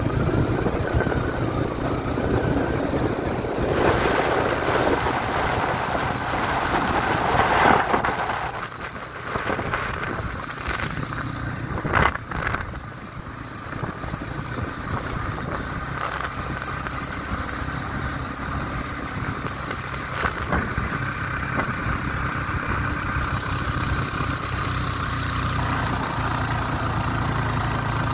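Motor vehicle engine running steadily while driving along a road, with road noise and a short sharp knock about twelve seconds in.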